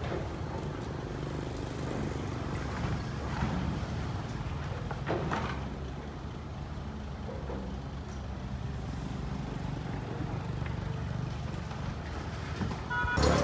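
Heavy diesel engine running steadily at a low, even pitch, with a few faint knocks.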